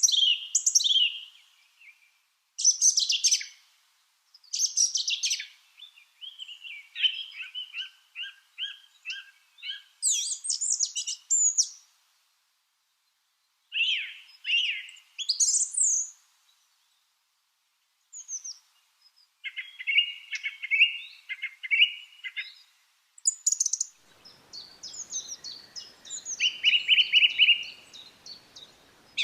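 Lovebirds chirping and calling in quick bursts of sharp, high-pitched chirps and rapid chirp series, with short silent pauses between bursts. A faint background hiss comes in near the end.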